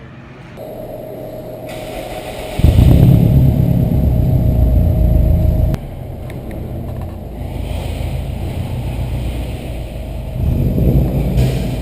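Turbocharged Subaru Impreza engine accelerating hard for about three seconds, then dropping off suddenly to a steadier cruise, with a shorter second burst of throttle near the end.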